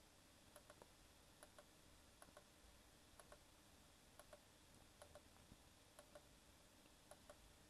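Faint computer mouse clicks, each a quick press-and-release pair, about once a second, placing curved anchor points along a shape with a drawing program's pen tool.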